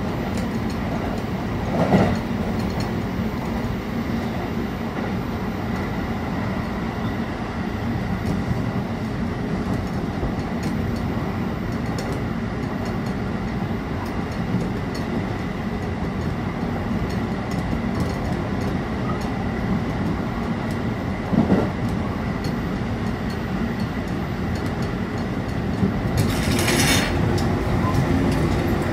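Running noise inside a JR Kobe Line Special Rapid electric train at speed: a steady rumble of wheels on rail. A louder knock comes about two seconds in and another about two-thirds of the way through, and a brief rushing hiss swells near the end.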